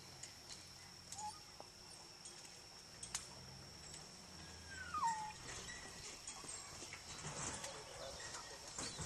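Chesapeake Bay retriever whining: one short falling whine about five seconds in, with a fainter one near the start, over quiet open-field ambience.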